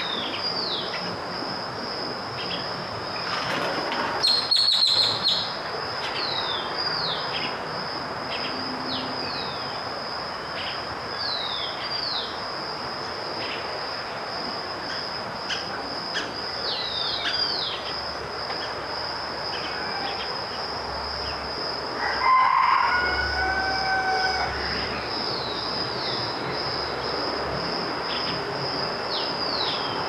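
Outdoor nature ambience: a steady high-pitched insect drone with many short, falling bird chirps over it. There is a louder burst about four seconds in and a louder pitched call about twenty-two seconds in.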